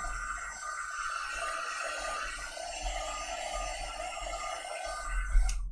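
Handheld craft heat tool blowing hot air steadily over chalk paste on paper, a constant blowing noise with a faint whine; it cuts off suddenly near the end.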